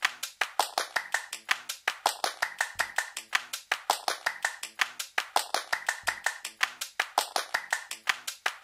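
A quick, even run of sharp taps, about five a second, with a low thud about every three seconds: a percussive sound effect laid under a logo animation.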